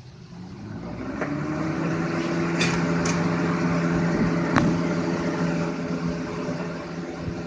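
Lakewood 200 box fan with a McMillan motor starting on high: the motor's hum rises in pitch over the first two seconds as the blades come up to speed, then runs steady with rushing air. A few light clicks along the way.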